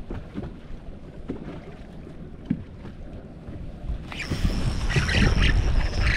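Wind over choppy water, with small waves lapping against the boat's hull. About four seconds in, a much louder rush of wind noise on the microphone.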